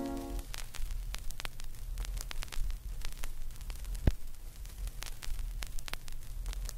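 Crackling static of scattered sharp clicks over a low hum. A held organ chord cuts off about half a second in.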